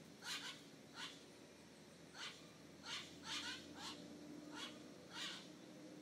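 White-throated magpie-jay calling: a series of about ten short, downward-slurred, mewing calls, some in quick pairs.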